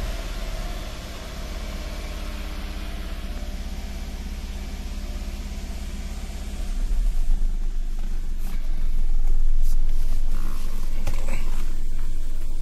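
Car engine running at raised revs with the accelerator pressed, warming up after a cold start. The hum changes and grows louder about seven seconds in, with a few knocks and rustles near the end.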